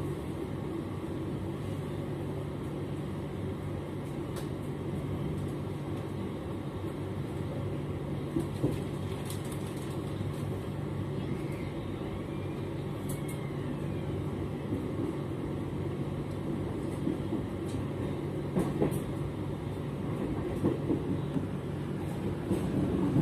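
Passenger train running at speed, heard from inside the coach: a steady rumble with a low hum, and a few short knocks from the wheels and car body, more of them near the end.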